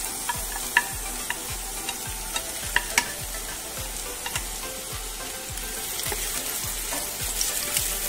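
Sliced onions sizzling in hot oil in a nonstick pan as they are scraped off a plate and stirred with a slotted spatula, with a few sharp clicks of the spatula against the pan and plate, the loudest about a second in and around three seconds in.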